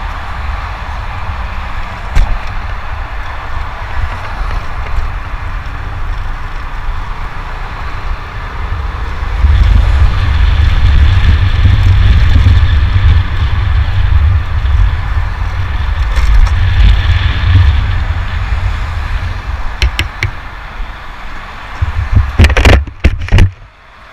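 Motorcycle riding along a road: wind rushing over the camera's microphone, with a deep rumble of engine and road noise. It grows louder for several seconds from about a third of the way in. A few sharp knocks come near the end, and then the sound cuts out briefly.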